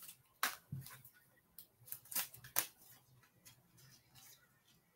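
Sports cards and plastic card holders being handled: a scatter of short, sharp clicks and snaps, irregular and at times several within a second.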